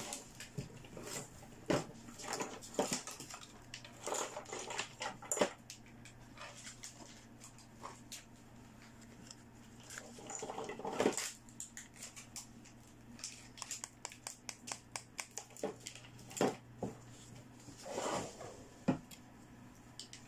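Hard plastic toy doctor-set pieces handled by hands: irregular clicks, taps and short rattles, including the hinged jaws of a pink plastic toy teeth model opening, over a faint steady hum.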